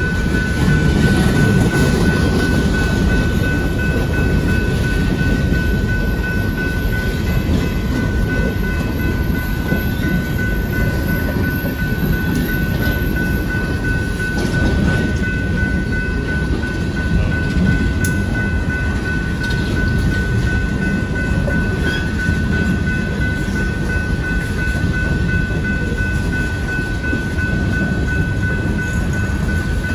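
Freight train's coal cars rolling past over the rails: a steady, loud rumble of wheels on track, with a steady high-pitched tone running above it.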